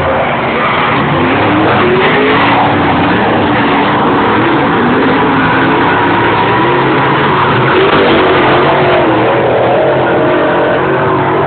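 Several dirt-track race cars' engines running hard as the cars lap together, their overlapping notes rising and falling in pitch, loud and continuous.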